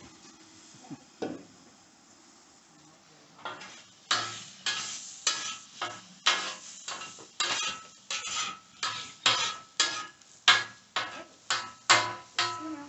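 Metal spatula chopping and scraping scrambled eggs on the steel top of a Blackstone griddle. It makes sharp clanking strokes about twice a second, starting about four seconds in, over the faint sizzle of the eggs cooking.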